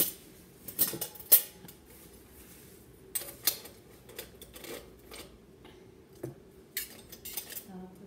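Scattered short clinks and knocks of a glass and a stainless-steel bucket being picked up and set down on a table, in small clusters: a few close together in the first second and a half, more a little after three seconds, and again near the end.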